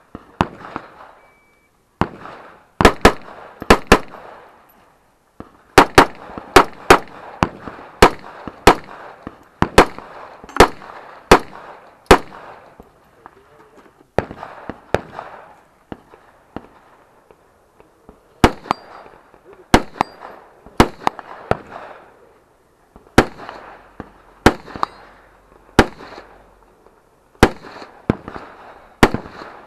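Rifle fire from a competitor shooting a stage: sharp shots, many in quick pairs, each with a short ring-out, with pauses of a second or two between strings.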